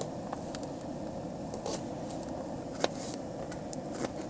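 A few separate sharp knife taps on a cutting board as green onions are cut, over a steady low rushing noise.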